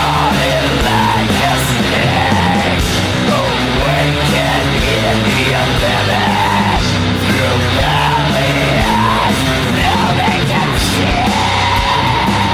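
Heavy metal song with a sung lead vocal over the full band.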